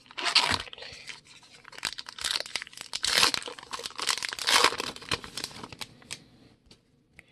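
A Topps Archives baseball card pack's foil wrapper being torn open and crinkled by hand, crackling for about five seconds, then a few faint clicks and rustles as the cards slide out.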